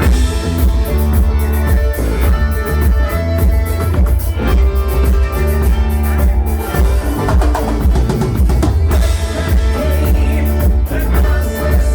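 Live band playing an instrumental stretch of a rock song on folk instruments, driven by a drum kit with a heavy, steady bass.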